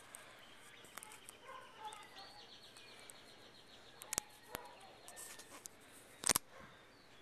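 Birds chirping faintly, with a buzzy repeating trill from about two to five seconds in. A couple of sharp clicks, then one loud rustling bump about six seconds in as the camera is handled.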